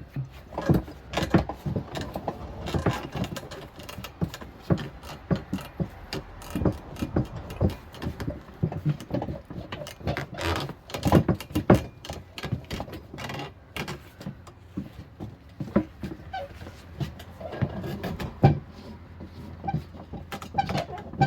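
Irregular clanks, knocks and scraping from hands-on work with tools on a tire and rim on a manual tire changer.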